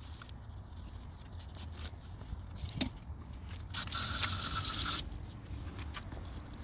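Parts being handled and scraped during cleaning of a throttle body and idle air control valve, with scattered clicks. About four seconds in comes a single hiss of pressurised spray lasting just over a second.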